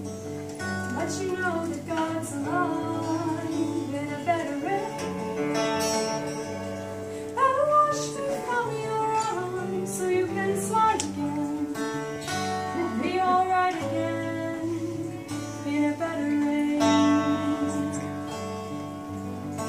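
A young woman singing a song, accompanied by live acoustic guitar strumming.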